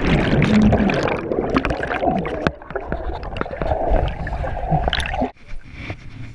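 Underwater gurgling and bubbling, heard by a chest-mounted GoPro submerged in a muddy pool after a plunge from a swinging obstacle. It cuts off suddenly about five seconds in.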